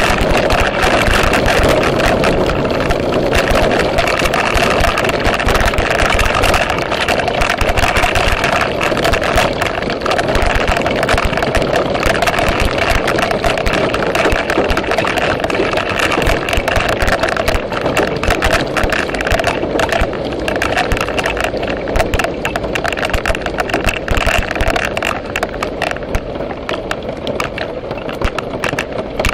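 Heavy downpour pelting close to the microphone: a dense, steady patter of rain hitting hard surfaces, easing a little in the last few seconds.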